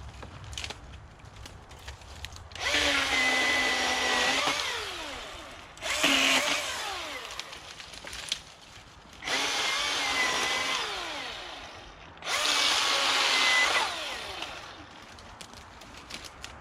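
Milwaukee Fuel battery-powered chainsaw run in four short bursts, the electric motor whining at a steady pitch and then winding down after each trigger release.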